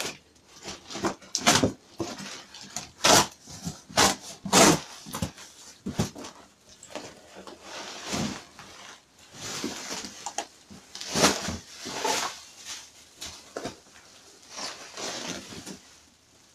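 Cardboard box being torn open and an item in bubble wrap pulled out. The cardboard rips and scrapes and the plastic crinkles in irregular sharp bursts, loudest about 1.5, 3, 4.5 and 11 seconds in.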